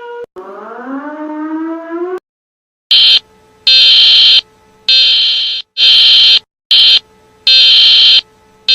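Siren tone rising in pitch, cutting off about two seconds in; after a short pause a shrill electronic alarm sounds in seven loud blasts of uneven length.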